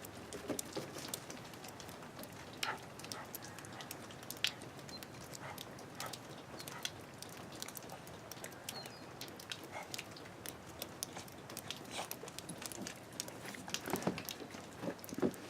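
Scattered light crunches and clicks of dogs moving about in snow, a few louder near the end.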